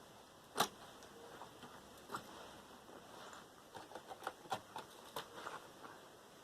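Scattered clicks and light taps of hand tools and small metal and plastic parts as a computer motherboard is taken apart: one sharper click about half a second in, another about two seconds in, then a quick run of small clicks near the middle.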